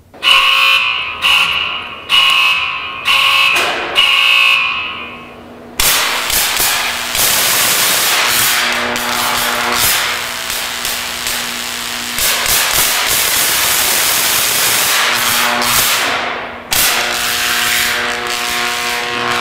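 A warning alarm sounds five pulsed blasts, then a 75,000-volt DC high-voltage supply comes on with a loud, steady buzzing hiss and mains hum. Near the end an electric arc strikes into the bottle of bubble solution.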